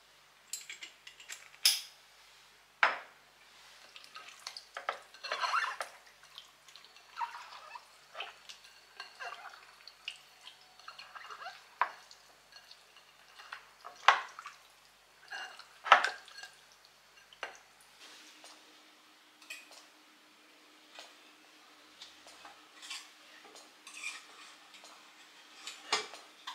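Raw chicken pieces being rubbed and turned by hand in a glass bowl: soft, wet handling noise broken by several sharp clinks against the glass.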